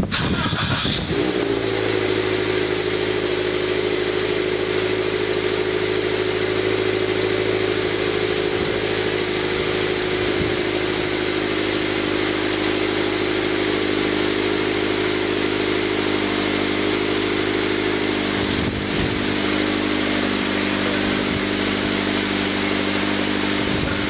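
Toyota 86's FA20 flat-four engine starting through a Zeta Performance cat-back exhaust. It catches about a second in, then settles into a steady idle whose pitch eases slightly lower as the seconds pass.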